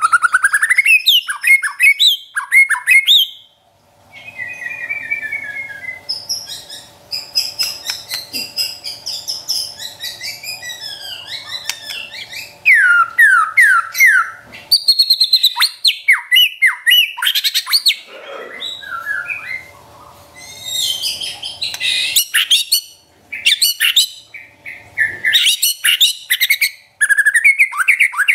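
White-rumped shama (murai batu) singing a long, varied song of loud whistles, runs of downward-sweeping notes and fast staccato rattles, the rapid-fire 'trotol' style. There is a brief pause about four seconds in.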